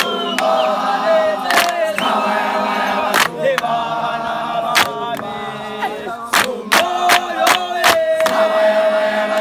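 A crowd of young men and boys singing a gwijo chant together, with hand claps breaking in every second or so.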